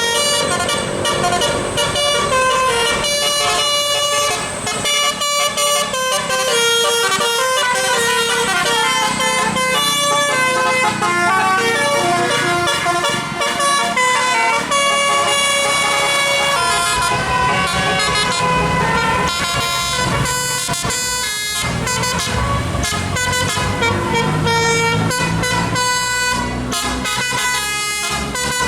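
Indonesian bus telolet horns (multi-tone musical horns) playing fast melodic tunes of quickly changing notes, with a bus engine running underneath in places.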